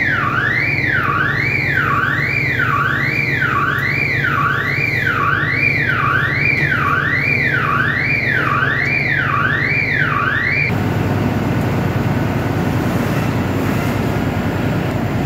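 An electronic alarm sounds a warbling tone that sweeps up and back down in pitch about three times every two seconds, over a steady low drone. The alarm cuts off suddenly about ten seconds in, and the drone carries on.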